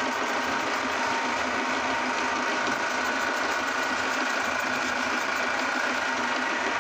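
Belt-driven aluminium meat grinder running steadily, its spinning pulley wheel and auger giving a constant motor hum with a few held tones, as cream wafer cookies are pushed down the hopper and ground.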